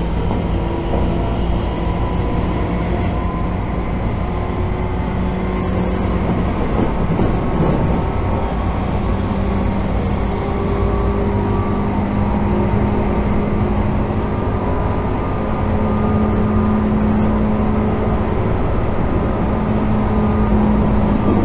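Tobu 9000-series electric train heard on board motor car MoHa 9204: chopper-controlled traction equipment humming over the rumble of the running train. Several steady tones hold for a few seconds at a time and then shift to a new pitch.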